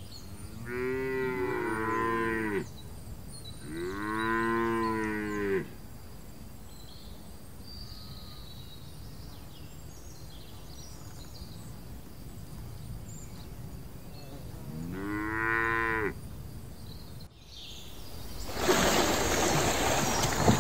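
Domestic cattle mooing: two long moos in the first six seconds and a shorter one about fifteen seconds in. Near the end the sound changes to loud water splashing, from brown bears wrestling in water.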